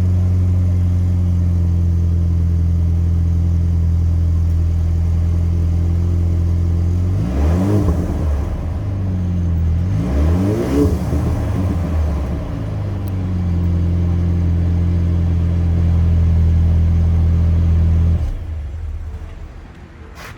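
2020 Ford Ranger's 2.3-litre EcoBoost four-cylinder idling through a newly installed MBRP dual exhaust, revved twice in the middle and then shut off a couple of seconds before the end. The exhaust has a deeper, more noticeable tone than stock without being much louder.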